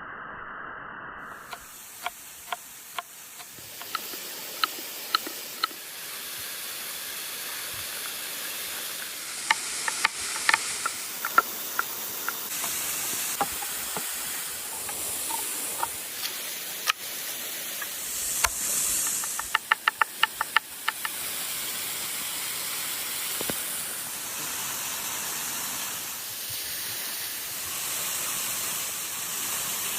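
Food frying in hot fat with a steady sizzle that starts about a second and a half in, broken by sharp crackles and pops, including a quick run of them about twenty seconds in.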